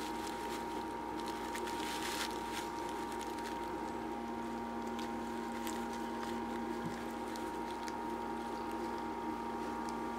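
A steady hum made of two held tones, one low and one higher, with faint scattered rustles and clicks of a cat pawing at hay in a wire cage.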